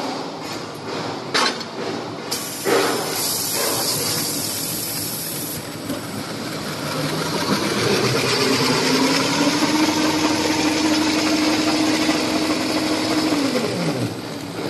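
Fully automatic stretch-film transfer machine running: a few sharp clacks, then its motor's tone rises in pitch, holds steady for a few seconds and falls away near the end as it spins down.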